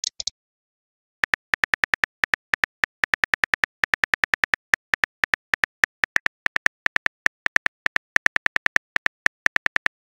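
Phone keyboard typing sound effect: two quick clicks, then after about a second a long, fast run of short clicks, roughly seven a second, as a text message is typed.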